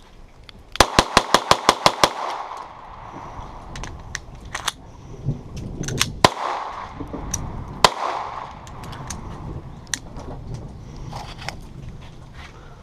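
Gunfire: a quick string of about ten shots about a second in, then scattered single shots and sharp cracks through the rest.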